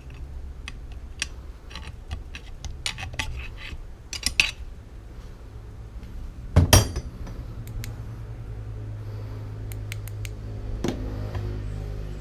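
Small metal parts and hand tools clinking and tapping as the air impact wrench is worked on, with a quick run of clicks in the first few seconds and a louder metallic knock about halfway through, over a steady low hum.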